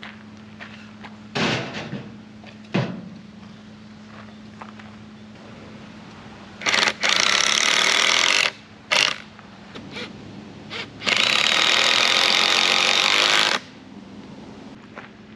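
Cordless impact driver hammering lag screws in at the base of a mailbox post, in two runs of about two and two and a half seconds with a short burst between. Two knocks come before it.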